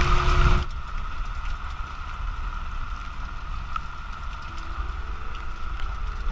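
Wind and rain squall on a sailboat. A loud rush of wind and spray on the microphone cuts off sharply about half a second in. After it comes a quieter, steady wind and rain hiss with scattered drop ticks.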